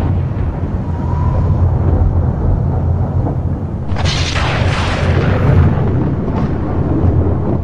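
Thunder sound effect: a steady low rumble, with a sharp thunderclap breaking in about four seconds in and rolling on.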